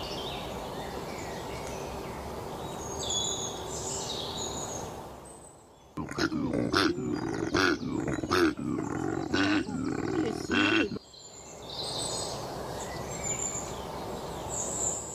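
A koala bellowing: a deep, rhythmic, snore-like grunting series, about two pulses a second, for about five seconds in the middle. Before and after it, birds chirp over soft outdoor ambience.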